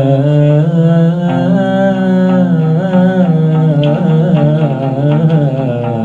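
Oud playing with a wordless sung melody, the voice sliding and wavering with vibrato over steady low notes.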